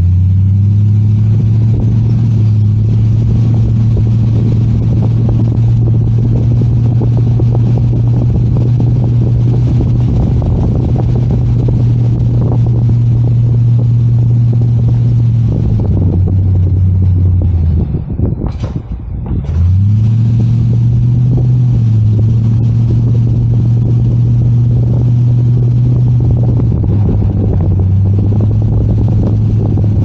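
Four-wheel-drive vehicle's engine pulling steadily while driving. A little past halfway its note falls away and nearly drops out for a moment, then picks up again, with small steps down in pitch a couple of seconds later and again near the end as it changes gear.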